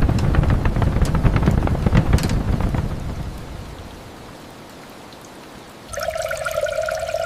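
Heavy rain with a rolling thunder rumble that fades away after about three seconds, leaving a steady rain hiss. Near the end a steady pitched hum with crackling and pattering cuts in suddenly.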